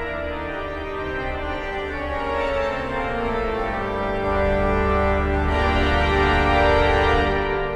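Pipe organ of 81 ranks on four manuals playing sustained chords. About four seconds in a deep pedal bass enters and the sound grows fuller and louder, then eases off near the end.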